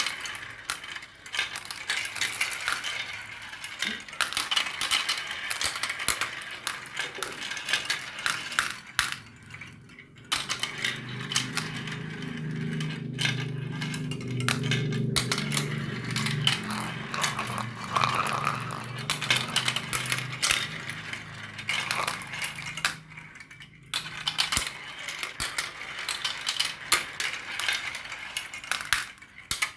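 Marbles rolling and clattering down a marble run: a dense stream of clicks and clinks as they knock against the track and each other. From about ten seconds in until about twenty-three seconds, a steady low rolling rumble runs under the clicks, which stop for a moment twice.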